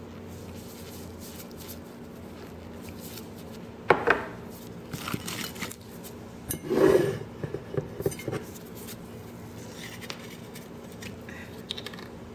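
A spoon or other utensil clinking and scraping against a dish while crab meat is mixed with its marinade. There is a sharp clink about four seconds in, a louder stretch of clatter around seven seconds, and lighter taps scattered after.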